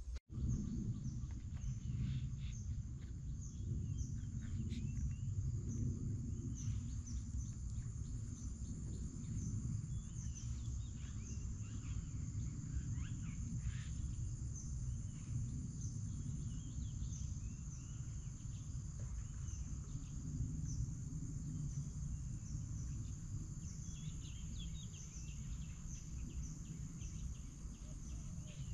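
Rural outdoor ambience: a steady low rumble under a constant high insect drone, with many short bird chirps scattered throughout.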